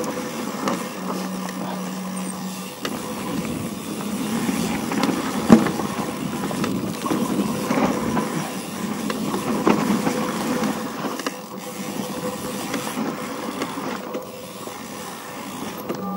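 A vehicle riding over a rough off-road trail: steady rumble of tyres on dirt and wind, with scattered knocks and rattles over a faint steady whine.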